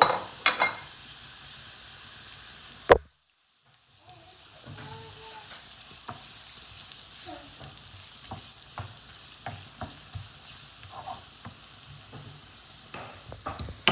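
Onions frying in oil in a pan, sizzling steadily as they cook toward light brown, while being stirred with scattered clicks of a utensil against the pan. A sharp knock a little before 3 s is followed by about a second of silence before the sizzling resumes.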